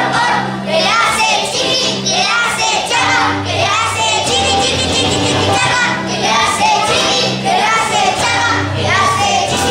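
A song playing, with a singing voice over a steady bass line.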